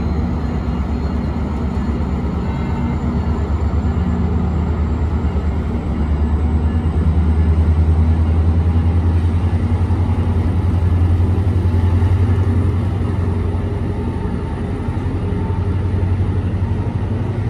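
Metrolink commuter train pulling out, its MP36PH-3C diesel locomotive running under power with a steady low drone that grows louder about six seconds in and eases after about twelve seconds, as the bilevel coaches roll by.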